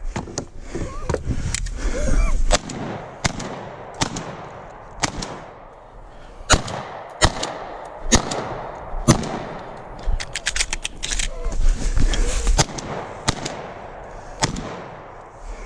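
Competition gunfire: a long series of single shots, mostly half a second to a second apart, with a fast string of about eight shots about two-thirds of the way through.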